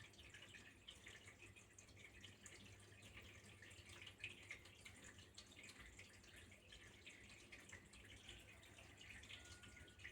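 Faint running water, trickling with a steady patter of small drips.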